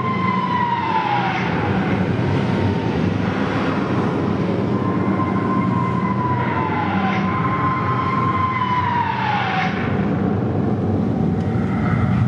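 Show sound effects over loudspeakers: three high whistles that hold one pitch and then slide down, like falling bombs, over a steady low rumble, with a short crack after some of the falls.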